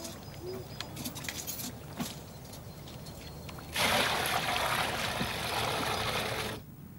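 Water poured from a bucket into a stone well trough: a steady splashing rush starts about four seconds in, lasts nearly three seconds and stops suddenly. Before it there are faint drips and knocks as the dripping bucket is hauled up.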